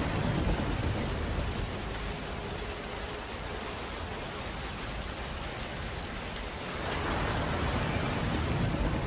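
Steady rainfall, an even hiss of rain on a surface, easing slightly midway and growing heavier again about seven seconds in.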